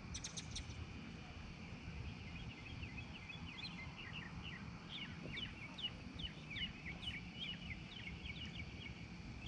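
Birds chirping in a quick run of short, falling notes that start about two seconds in and carry on to the end, over a steady low rumble. A brief rattle of high clicks comes right at the start.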